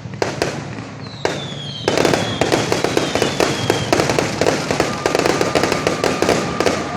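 Fireworks going off. A few sharp bangs are followed, from about two seconds in, by a dense rapid crackle of many small bursts. A long, slowly falling whistle runs through it, and later a steady whistle.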